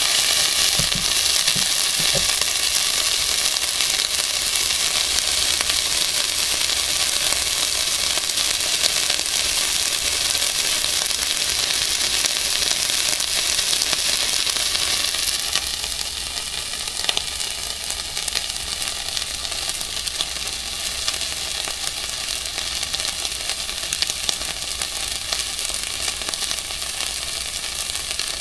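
Raw ribeye steak sizzling under a red-hot nickel ball resting on it, a steady frying hiss with scattered small crackles as the meat's juices and fat boil off as steam. The sizzle eases a little about halfway through.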